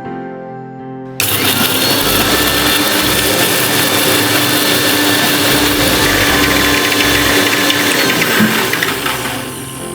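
Electric kitchen mixer grinder (mixie) running, grinding roasted dry red chillies and cumin: it starts suddenly about a second in, runs loud and steady, and winds down near the end. Soft background music before it starts and as it stops.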